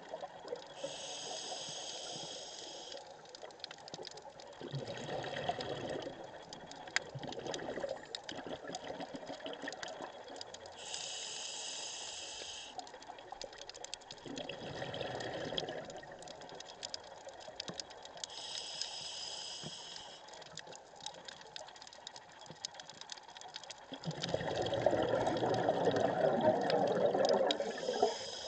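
Scuba diver breathing through a regulator: a hiss on each inhale, followed a few seconds later by a gurgle of exhaled bubbles, about every eight to ten seconds. The last exhale, near the end, is the longest and loudest bubbling.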